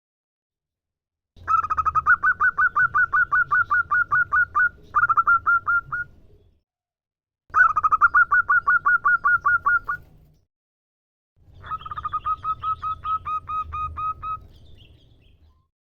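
Female zebra dove (perkutut) calling to males: three bouts of rapid, evenly repeated notes at about six a second, separated by short silences.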